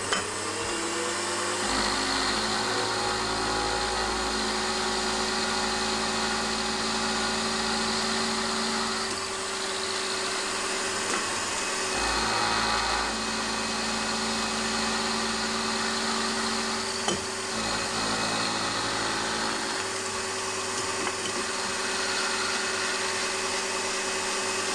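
Milling machine spindle spinning up, then an end mill cutting a metal rocker-arm blank held in a fixture: a steady motor whine with cutting noise throughout.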